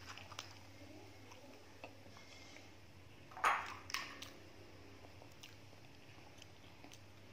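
Faint crackles and rustles of a hand handling a cracked balut eggshell and fresh herb leaves, with a louder crackle about three and a half seconds in and a smaller one just after.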